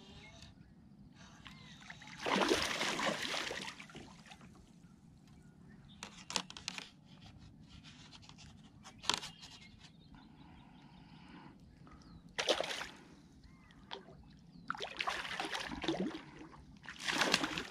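A hooked bass splashing at the water's surface beside a kayak as it is played on the line. The splashes come in bursts: a longer one about two seconds in, short ones after that, and more splashing toward the end.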